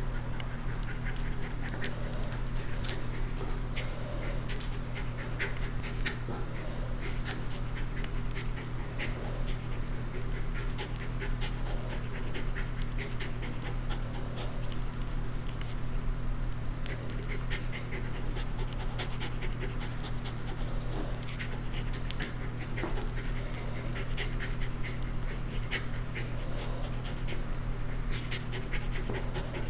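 Welsh Terrier panting as she rolls and wriggles on her back on a carpet, with scratchy scuffs and rustles from her damp coat rubbing the rug. A steady low hum runs underneath.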